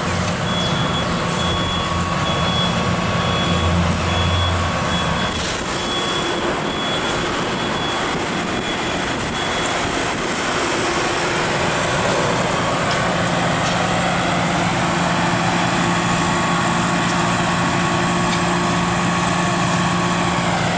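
Steady city street traffic noise with a heavy vehicle running. A high beep repeats evenly for about the first ten seconds, then stops.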